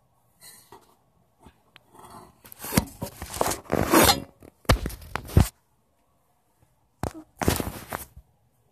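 Bursts of rustling and scraping noise, in a long cluster of several strokes starting a few seconds in and a shorter one about seven seconds in.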